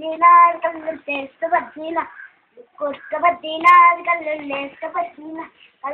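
A child singing on their own, in short phrases with a couple of longer held notes.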